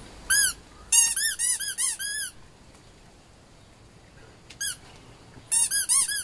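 A squeaky dog toy squeezed over and over: one squeak, then a quick run of about six, a single squeak, and another quick run near the end. Each squeak is short and high-pitched, with a rise and fall.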